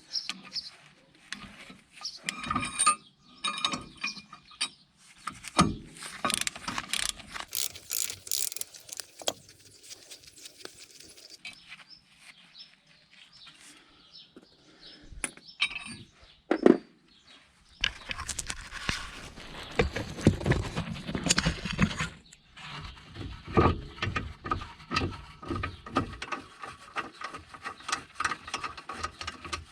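Hand tools working on a car's front brake and hub: ratchet clicks and metal parts knocking and clinking, irregular throughout, with a louder, busier stretch about two-thirds of the way in.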